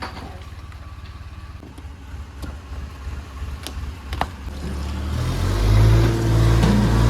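Heavy diesel engine running low, with a few sharp clanks, then revving up about five seconds in and holding a loud, steady drone.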